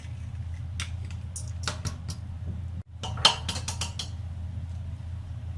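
Fork clinking against a bowl while beating eggs: a few scattered taps, then after a brief cut a quick run of clinks. A steady low hum runs underneath.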